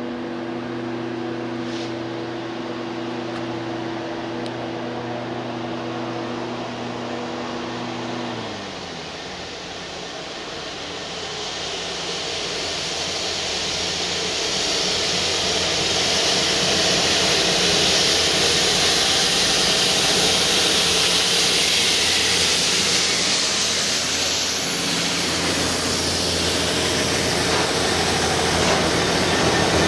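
A steady multi-tone hum drops in pitch about eight seconds in, then a GBRf Class 66 diesel-hauled railhead treatment train approaches and passes close by: a hiss swells and stays loud, and the two-stroke V12 engine's low drone grows strong near the end.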